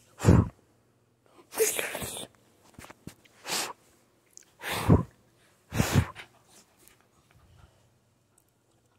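Five sharp, sneeze-like blasts of breath close to the microphone, the second drawn out for most of a second, followed by a few faint sniffs.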